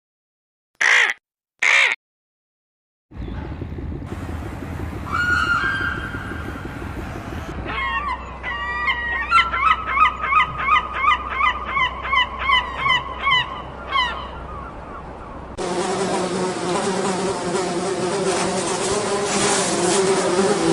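Two short harsh bird calls, then, over outdoor background noise, a bird calling in a quick run of falling cries, about two a second. About fifteen seconds in, a fly's steady buzzing hum takes over.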